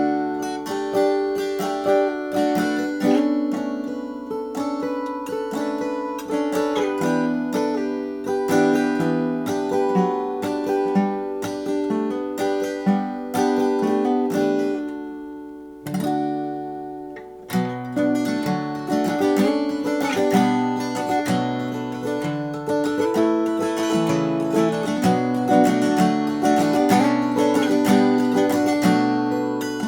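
A 1919 Martin 0-18 acoustic guitar played fingerstyle, plucked chords over a moving bass line. The notes ring and die away for about two seconds near the middle, then the playing picks up again.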